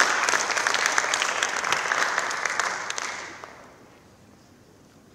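Audience applauding, a dense patter of many hands clapping that fades out about three seconds in and leaves low room noise.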